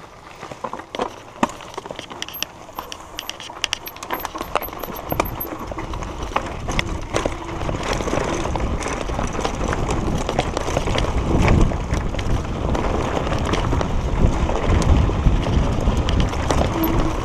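Mountain bike riding down a stony dirt singletrack: tyres crunching over loose gravel and the bike rattling with sharp clicks. Wind rumbles on the microphone, growing louder from about five seconds in.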